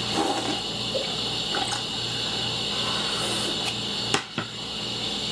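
Milk being poured into a cereal bowl in a steady stream, stopping about four seconds in with a sharp click.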